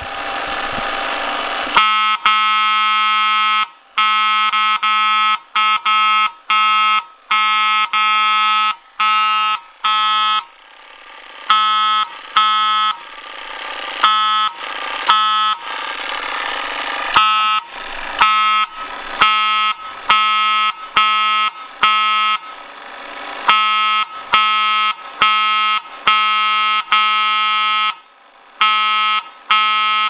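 Notifier 34-24 mechanical fire alarm horn sounding an irregular, jumbled pattern of short and longer blasts, broken by stretches of rougher unpitched buzzing. It is being pulsed by three coded pull stations at once, so their codes overlap and no single code can be read, sounding totally random.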